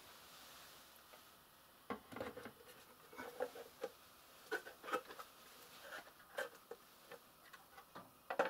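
Handling noise: quiet room tone, then from about two seconds in a run of irregular light taps, clicks and soft scrapes, as of objects and packaging being moved about on a table.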